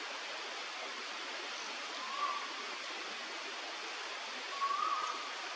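Two faint, short whistled bird notes, about two seconds in and again near the end, over a steady hiss.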